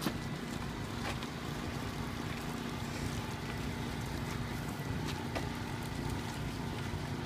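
A steady engine hum, with wind on the microphone and a few light clicks.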